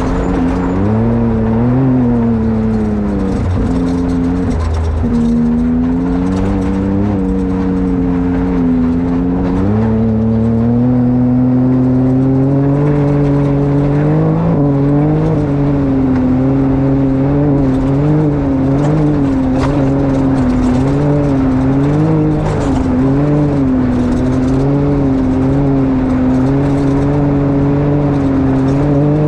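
Engine of a Can-Am XRC side-by-side running at low, held-down revs, its pitch wavering up and down and stepping up slightly about ten seconds in. The machine is in limp mode with a bad drive belt.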